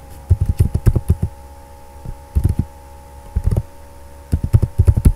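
Computer keyboard typing: quick runs of keystrokes in four short bursts with pauses between, as a word is typed out. The keystrokes come through mostly as low thuds.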